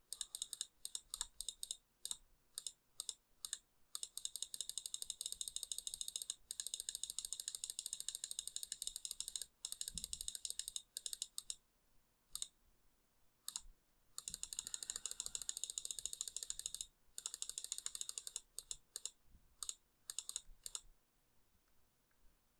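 Computer mouse clicking rapidly, many sharp light clicks in quick runs with short pauses between. The clicks stop a little before the end.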